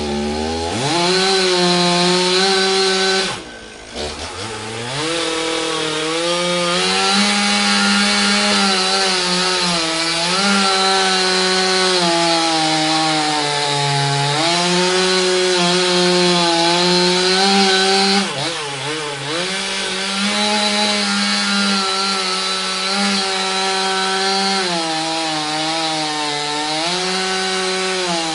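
Two-stroke chainsaw running at high revs and cutting wood, its pitch sagging under load and picking up again. The engine briefly drops off and comes back up about four seconds in and again a little past the middle.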